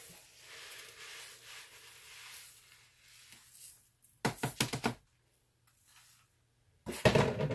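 Damp bath salts pouring out of a flexible bowl onto parchment paper on a metal baking sheet, a soft grainy hiss, followed a little after four seconds by a quick run of sharp taps and about seven seconds in by a louder clatter.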